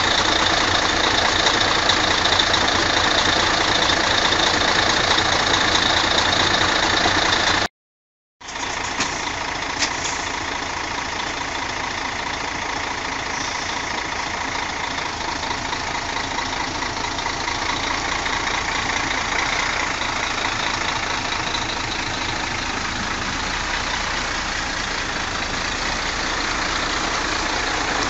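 Heavy Mercedes-Benz diesel trucks running at a steady idle. The sound drops out for under a second about eight seconds in, then the idling carries on evenly.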